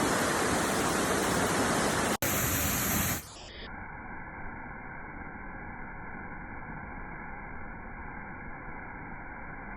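Waterfall rushing as a loud, steady roar that breaks off briefly about two seconds in. About three seconds in it drops to a much quieter, muffled hiss.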